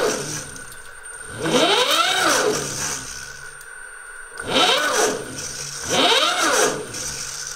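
Zero SR/F electric motorcycle's drive motor whining up and dying away as the throttle is opened and released three times, the rear wheel spinning free on a paddock stand; each surge rises and falls in pitch. Under it runs a steady high whine, which the owner takes for the motor controller at work.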